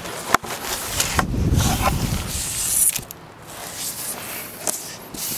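Black board being slid out of a padded nylon board bag: fabric rustling and scraping with a few sharp clicks and knocks, loudest in the first three seconds.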